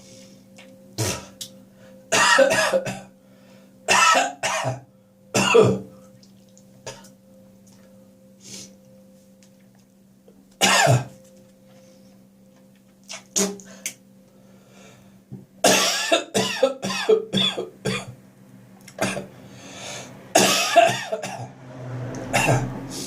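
A person coughing and clearing their throat in repeated fits, a few hard coughs at a time with pauses between, then a longer run of coughing about two-thirds of the way through. A faint steady hum runs underneath.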